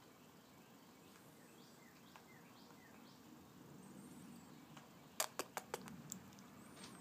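Near-quiet background with a few faint, high falling chirps, then about five sharp clicks in quick succession about five seconds in.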